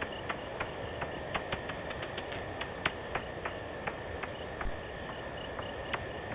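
Bats calling at night: a string of short, sharp clicking pings at irregular intervals, several a second, some louder than others, over a steady high-pitched tone and background hiss.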